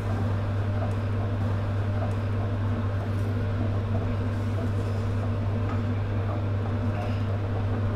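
Wooden spatula stirring and scraping thick caramelised sugar and soy sauce around a stainless steel pot, faint small scrapes over a steady low hum.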